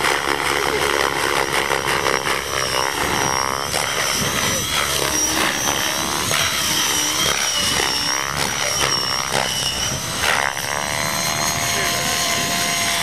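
AHF Aeolus 600 electric RC helicopter flying aerobatics: a high whine from its brushless motor and drivetrain over the rotor blades' whirr, the pitch rising and falling as it swoops through manoeuvres.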